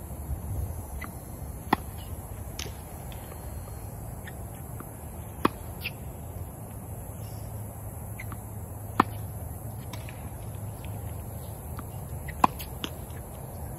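Tennis racket striking a ball, four sharp hits about three and a half seconds apart, with fainter ticks between them from the ball and footsteps on the hard court.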